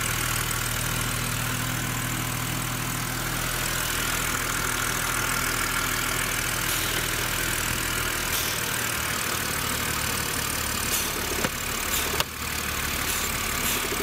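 BMW N52 three-litre straight-six engine idling steadily, heard close up in the engine bay, with a few sharp clicks near the end as a hand tugs at a cap on the hot engine.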